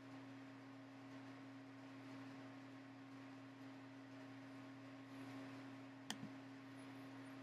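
Near silence: room tone with a steady low hum and faint hiss. A single sharp click about six seconds in.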